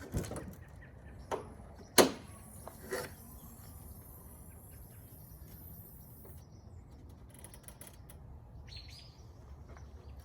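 A few sharp knocks and clicks, the loudest a single bang about two seconds in, followed by a faint high chirping.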